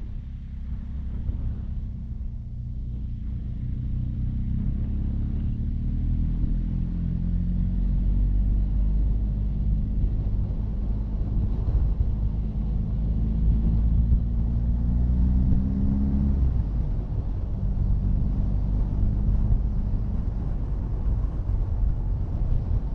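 Motorcycle engine running under way with low road and wind rumble. Its pitch climbs steadily for about ten seconds as it accelerates, then drops suddenly about sixteen seconds in, as at a gear change or closing the throttle.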